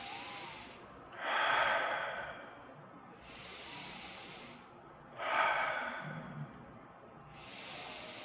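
A man breathing deeply and audibly, slow and even: a soft inhale, then a louder exhale, twice over, with a third inhale near the end.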